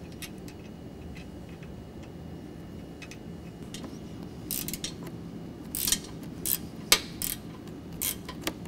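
Hand ratchet wrench clicking in short, irregular bursts from about halfway through, snugging down the fasteners that hold a Jeep JK's vacuum pump on its relocation bracket. Before that there are only a few faint clicks over a low hum.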